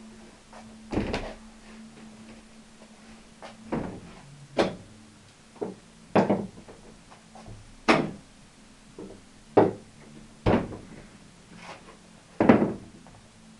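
Knocks and clunks of a homemade chipboard folding table being folded up: its top and legs swing shut and bump together and against the wall, about ten separate knocks roughly a second apart, the loudest near the end.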